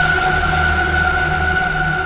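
Spectrasonics Omnisphere synthesizer patch "It's Approaching" holding a sustained drone: two steady high tones over a pulsing low rumble.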